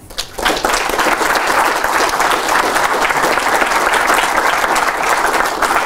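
Lecture-hall audience applauding, a dense, steady patter of many hands clapping that starts just after the talk's closing "thank you".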